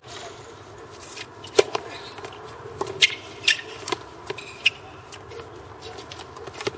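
Tennis rally: sharp pops of a tennis ball struck by rackets and bouncing on a hard court, several in a few seconds, the loudest about a second and a half in.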